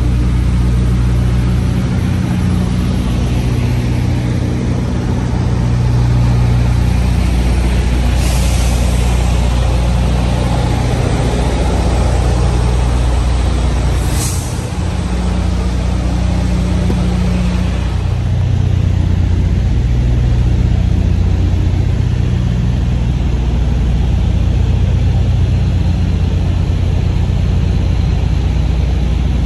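Semi-truck diesel engine running steadily, with two short hisses of air from the brakes, one about a quarter of the way in and a briefer one about halfway through.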